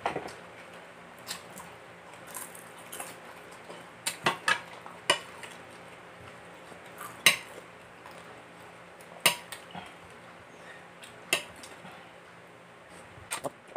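Spoon and fingers knocking against ceramic plates while eating: several sharp clinks a second or two apart, with quieter handling noise between.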